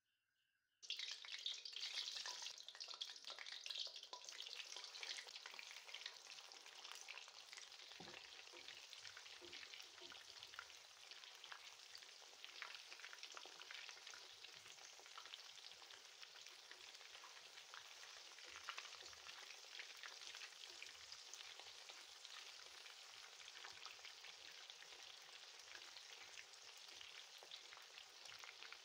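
Marinated chicken wings deep-frying in hot oil in an iron kadai: a dense sizzling crackle of many small pops. It starts suddenly about a second in, is loudest for the first few seconds, then settles to a steady sizzle.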